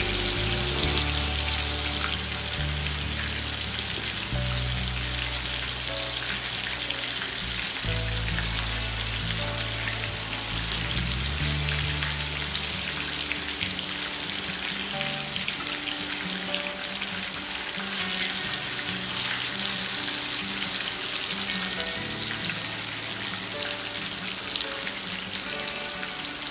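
Spice-marinated chicken pieces frying in hot oil in a nonstick pan: a steady sizzle with small crackles. Soft background music with slow low notes plays underneath, fading after the first half.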